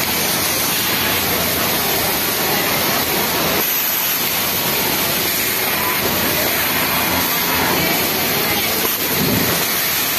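Steady, even hiss and whirr of a garment factory sewing floor, with industrial sewing machines running.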